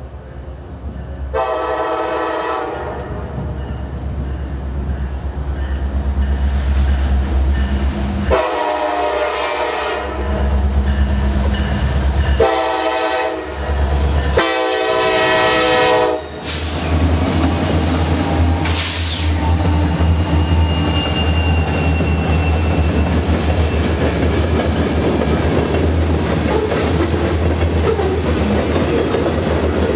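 Freight train's diesel locomotives sounding the horn for a grade crossing in the long, long, short, long pattern while approaching. The locomotives then pass close with a deep engine drone, followed by freight cars rolling by with a steady clickety-clack of wheels over the rail joints.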